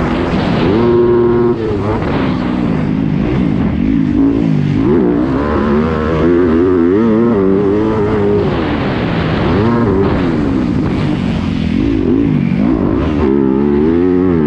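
Yamaha YZ250F's 250 cc single-cylinder four-stroke engine revving hard under race riding, heard from onboard the bike. Its pitch climbs and drops every second or two as the throttle is worked over the jumps and ruts.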